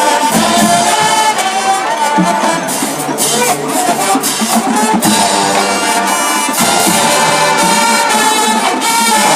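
College marching band playing a halftime show tune: the brass section of trumpets and trombones carries the melody over drumline hits.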